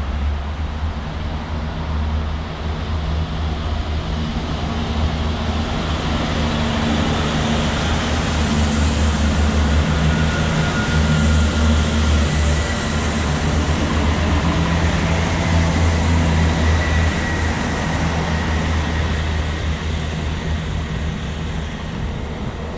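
A diesel multiple unit passing along the platform, its underfloor diesel engines running with a steady low throb over wheel and rail noise. It grows louder as it comes alongside about halfway through, then eases off as it moves away.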